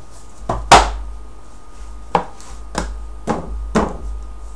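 A series of about six sharp wooden knocks, the loudest a little under a second in, as the particleboard panels of a flat-pack drawer are pushed and knocked into place by hand.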